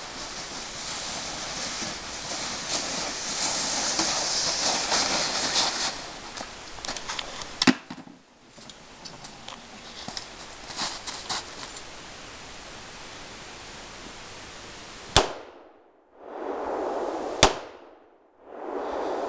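Rustling and crunching through snow as a loaded sled is hauled along, with a sharp knock about eight seconds in. Near the end a rifle fires two single shots about two seconds apart.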